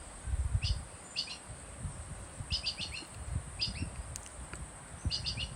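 A small bird calling again and again in quick clusters of three or four high chirps, about once a second, over a steady high-pitched insect drone. Low rumbles and soft thumps run underneath.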